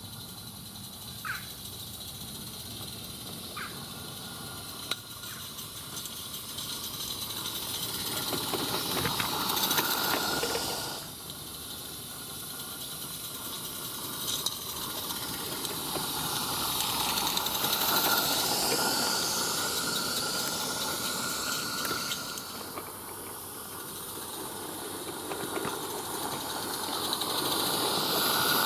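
Live-steam model locomotive hissing steam as it runs, the hiss growing louder as it comes closer. It cuts off abruptly twice, about a third and two thirds of the way through, then builds again.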